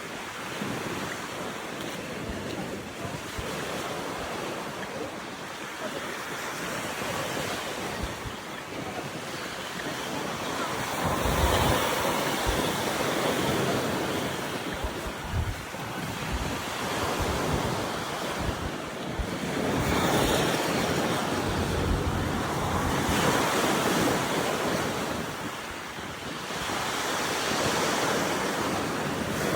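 Sea waves breaking on a beach in swells every few seconds, with strong wind buffeting the microphone in low rumbling gusts.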